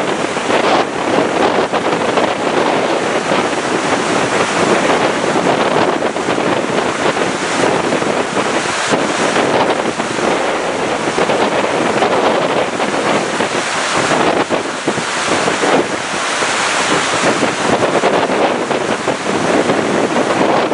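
Floodwater rushing down a concrete flood channel during a flash flood, a steady dense roar mixed with wind buffeting the microphone in gusts.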